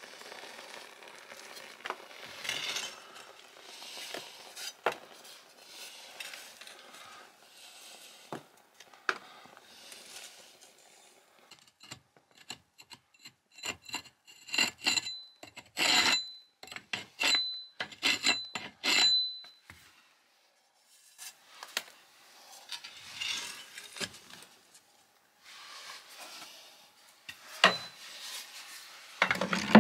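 A freshly lit kindling fire in a masonry wood stove's firebox, crackling faintly at first. About halfway through comes a run of loud rasping, scraping strokes, each with a thin metallic ring, as the fire is worked. Near the end there is a sharp clank as the stove's iron door is shut.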